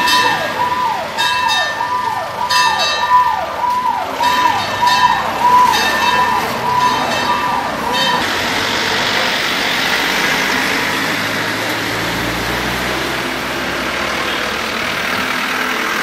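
Fire engine siren wailing in quick falling sweeps, about one and a half a second, broken by short blasts of another tone. It cuts off about halfway through, leaving a steady rumble of engines and noise.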